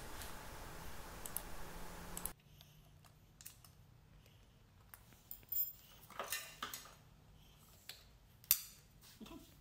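Scattered light clicks and taps of hand work on the drive unit: a hex key on a cover screw, then a plastic wiring-harness connector being pushed into its socket on the plastic cover. A steady hiss runs for about the first two seconds and stops abruptly.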